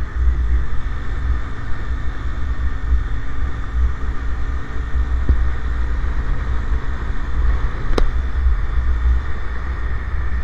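A motorcycle running steadily on the road, with heavy wind rumble on the microphone from riding. A sharp click comes about eight seconds in.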